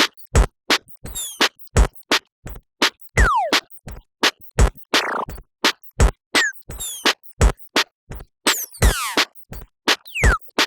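Electronic instrumental background music: a kick drum about every second and a half, with quick clicks between the beats and short synth bleeps that fall in pitch. Brief swooshes come near the middle and near the end.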